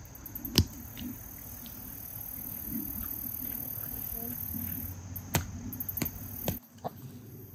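Steady chirring of crickets and other insects, broken by a few sharp knocks: one about half a second in and a cluster between about five and seven seconds in.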